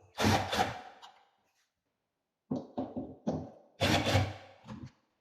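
Knocks and scraping of a wooden wardrobe door being taken off and handled. There is a longer scrape at the start, a few short knocks, and another longer scrape about four seconds in.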